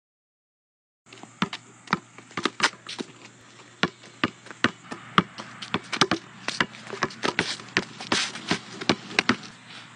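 A basketball bouncing on pavement in uneven, fumbled dribbles, sharp bounces about two or three a second, starting about a second in.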